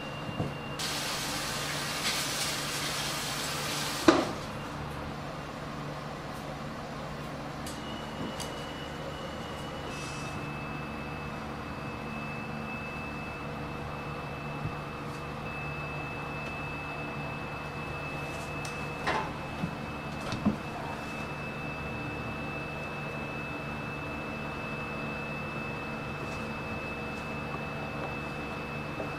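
Quiet kitchen room tone: a steady low hum with a faint high whine. A hiss lasts about three seconds near the start and ends in a sharp knock, and a few light clicks come later.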